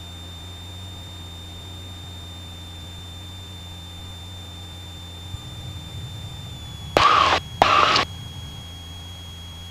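Cessna 172 cabin drone of engine and propeller with a steady high tone over it. The low drone turns rougher about five seconds in and the tone dips slightly in pitch. About seven seconds in, two short, loud bursts of noise about half a second apart stand out above it.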